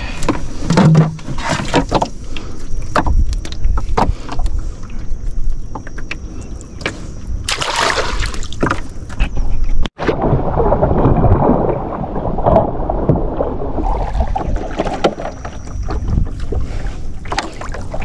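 Knocks and clatter on a small boat on the water, with a louder scraping burst about eight seconds in. After a sudden cut about ten seconds in, a steady watery wash runs for several seconds.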